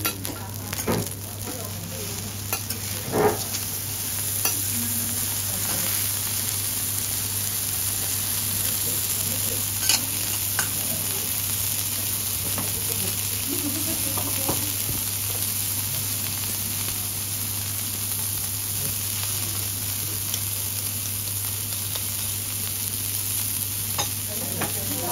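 Wagyu steaks sizzling on a teppanyaki iron griddle, a steady hiss of frying, with a few sharp taps near the start, about ten seconds in and near the end.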